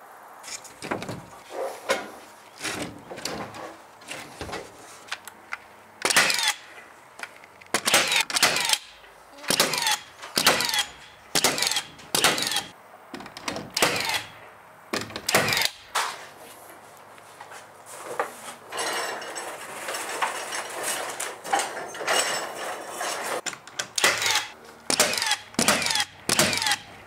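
Cordless nail gun firing nails through plywood sheathing into overhead ceiling joists: sharp shots at an uneven pace, coming in clusters, with smaller knocks from the sheet being handled between them.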